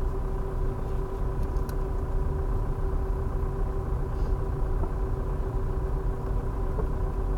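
Steady engine and road rumble of a car driving slowly, heard from inside the cabin, with a constant low hum throughout.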